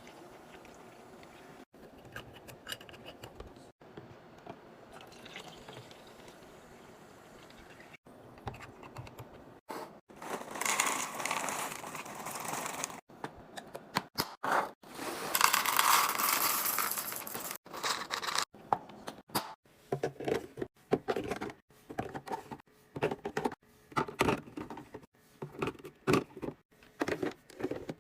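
Liquid poured into containers in two longer stretches, then a quick run of short knocks and clinks as containers and items are handled and set down.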